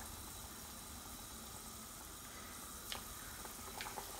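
Vettu cake dough deep-frying in hot vegetable oil: a faint, steady sizzle and bubbling, with a couple of faint clicks near the end.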